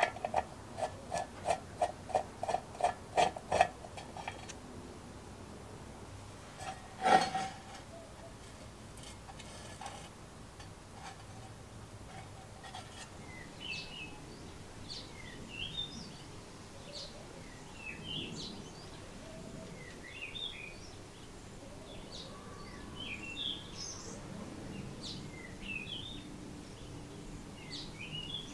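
A screwdriver twisting out a small screw from the steel base plate of a vintage sandwich toaster: short rhythmic strokes, about three a second, growing louder. A single sharp knock about seven seconds in. From about twelve seconds on, birds chirp in the background.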